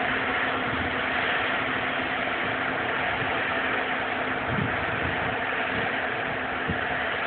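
Claas Lexion 520R combine harvester running as it harvests grain: a steady drone of engine and threshing machinery with a constant low hum.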